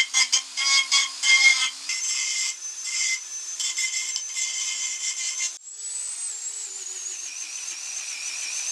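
A handheld rotary tool grinding the cut edges of a small 3 mm aluminium bracket clamped in a vise, deburring and rounding them off. There is a high motor whine with rough, uneven scraping where the bit bites. About five and a half seconds in the scraping drops out, and the whine runs on smoother with a wavering pitch.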